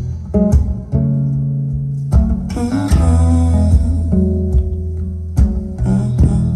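Instrumental intro of a song, before any singing, played through B&W 606 S3 bookshelf speakers driven by a Cambridge Audio Evo 75 streaming amplifier.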